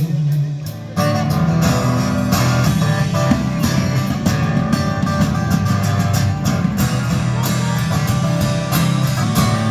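Instrumental break in a song, led by guitar with a steady rhythm, growing suddenly fuller about a second in.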